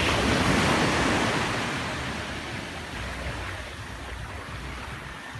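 Small waves washing up onto a sandy beach. The wash is loudest in the first second or so and then slowly dies away.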